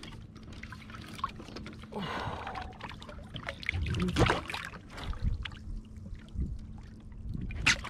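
Water splashing and sloshing around a kayak, with irregular knocks and rattles of fishing gear being handled, and one sharp knock near the end.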